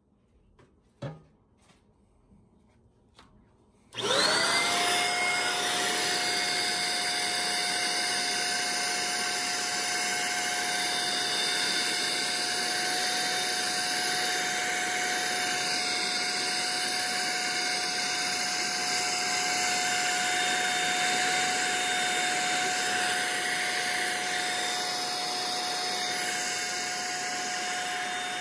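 A few light knocks, then about four seconds in a handheld vacuum cleaner is switched on, its motor spinning up with a short rising whine and then running at a steady whine while it vacuums coffee chaff out of a home roaster.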